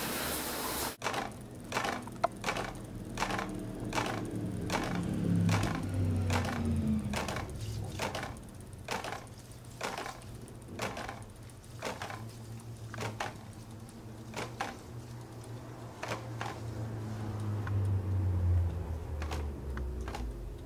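Bicycle rear wheel and drivetrain ticking: sharp clicks about twice a second, slightly uneven, over a low hum.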